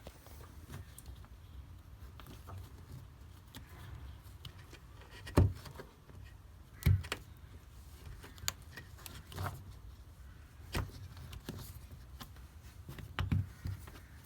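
Workshop handling of parts and tools: a series of irregular knocks and clicks, the loudest about five and a half seconds in, over a low steady hum.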